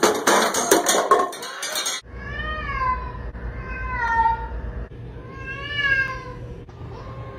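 A loud clatter of things knocking and falling for about two seconds, then a cat meowing three times over a low hum, each meow long and drawn out, rising then falling in pitch.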